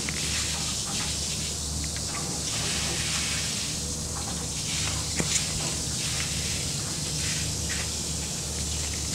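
Steady hiss of water rushing under pressure through the fill hose and pipe header of a geothermal ground loop being flushed to purge air, over a low steady hum, with a faint tick about five seconds in.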